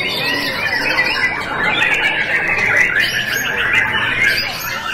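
Many caged songbirds singing at once: a dense, continuous tangle of overlapping whistles, trills and chirps.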